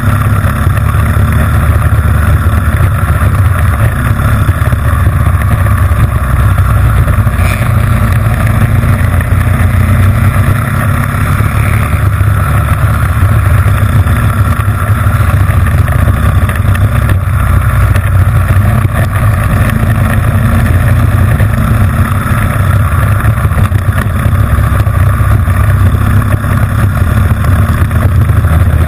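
Honda GX160 single-cylinder four-stroke kart engine running steadily at high revs while the kart races, heard close up from an onboard camera.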